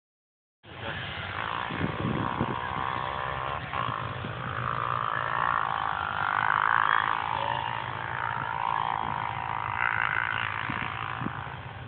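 Vehicle engines running, most likely the tracked ATVs: a steady low idle under a higher engine note that rises and falls.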